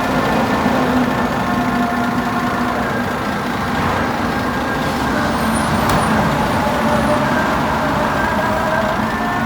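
Steady motor-vehicle traffic noise with a few faint steady tones over it, and a single sharp click about six seconds in.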